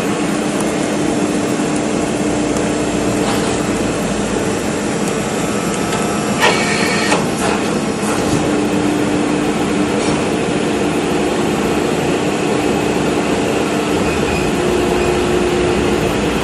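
Metal can baling machine running with a steady mechanical hum, with a short metallic screech and clank about six and a half seconds in.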